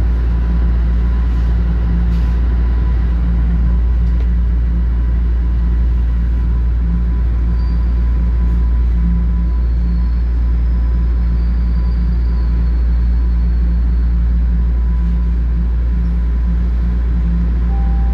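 Subway train heard from inside the car, running with a steady low rumble and a thin steady whine as it slows alongside a station platform. A faint high squeal comes and goes midway.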